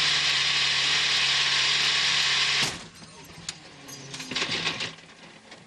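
Onboard sound of an LMP2 car's Gibson V8 engine running steadily, which cuts out abruptly about two and a half seconds in as the car is struck by another car. Quieter clicks and short crackles follow.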